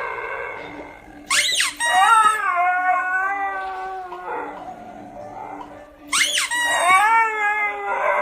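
A squeaker toy squeaks and a husky answers with a howl that slides down in pitch; this happens twice, about a second in and again about six seconds in.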